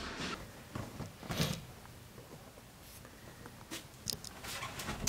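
Quiet room with a few faint, scattered knocks and rustles, the clearest about a second and a half in and a few more near the end.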